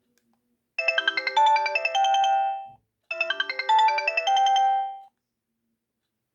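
Sony Ericsson K320i mobile phone playing a built-in ringtone through its speaker: a short melody of quick notes ending on a held note, played twice with a brief gap between.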